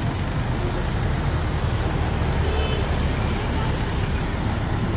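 Garbage compactor truck's engine idling with a steady low rumble while the truck stands loading at the roadside, under general street traffic noise.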